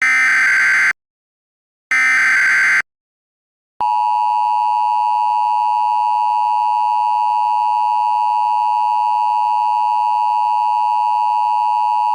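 Emergency Alert System SAME header: two short digital data bursts, about a second each with a second's gap between them, the tail of the three-burst header. About four seconds in, the steady two-tone EAS attention signal starts and holds, announcing a new alert.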